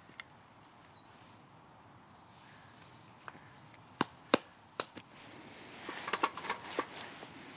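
Several sharp knocks, like wood being struck, then a quick run of crackling clicks for about a second near the end.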